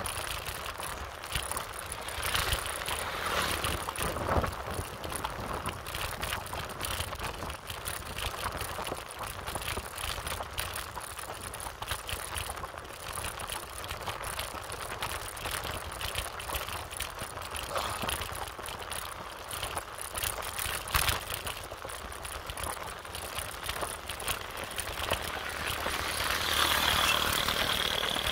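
Wind rushing over the microphone and the rattle of a bicycle rolling along a road, with frequent small knocks. Near the end a steady high whirr comes in and the sound grows a little louder.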